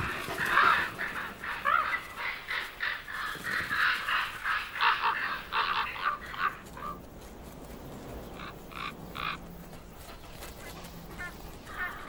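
A flock of common ravens croaking and calling, many overlapping calls for the first six seconds or so, then only a few scattered calls.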